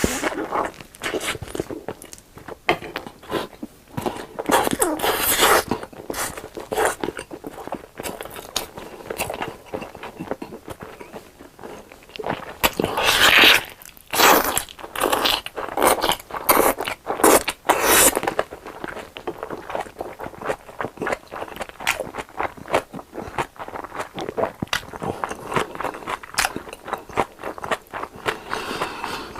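Close-miked eating: irregular crunchy bites and wet chewing, with clusters of denser crunching about a third and halfway through.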